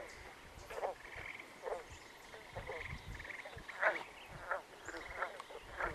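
A chorus of bullfrogs croaking in short, repeated calls, about one a second, over a steady high, pulsing trill.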